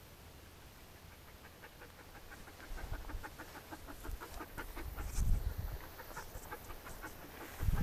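An animal panting rapidly in an even rhythm, growing louder from about two seconds in, with low rumbles about five seconds in and again at the end.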